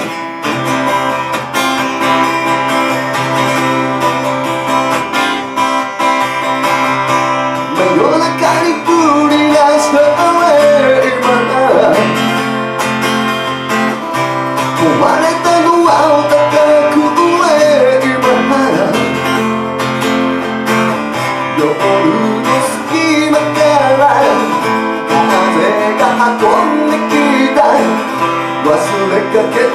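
Acoustic guitar strummed steadily through an instrumental passage of a song, with a wavering melody line rising and falling over the chords from about eight seconds in.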